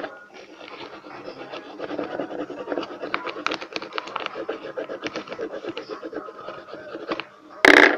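Coloured pencil scratching on paper in quick back-and-forth strokes as a folded paper boat is coloured in. A brief, loud bump near the end.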